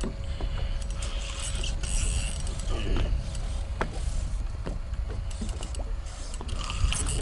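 A spinning reel being cranked under load against a big barracuda, its gears and drag clicking and whirring, over a low steady rumble.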